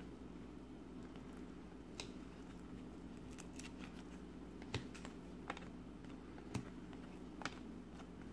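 A stack of stiff chrome-finish 1998-99 Finest trading cards being flipped through by hand: faint, irregular clicks as card edges slide and snap past each other, a few sharper than the rest in the second half. A low steady hum runs underneath.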